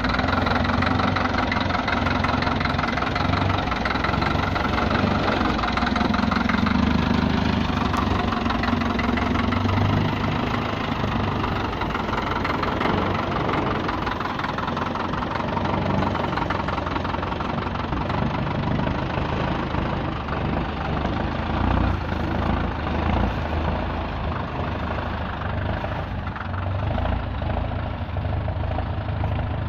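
Csepel D-344 truck's diesel engine running as the truck drives past off-road, a steady low rumble that rises and falls with the throttle, a little louder in the first ten seconds.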